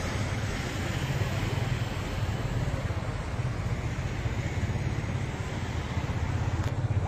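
Street traffic noise: a steady low engine rumble under a wash of road noise, with no distinct events.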